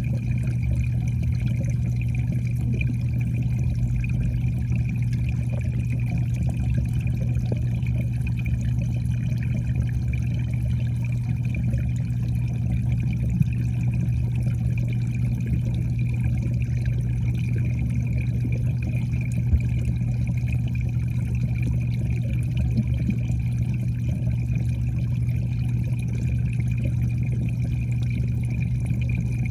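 Steady underwater sound in a koi pond: a constant low hum with an even rush of moving water, unchanging throughout.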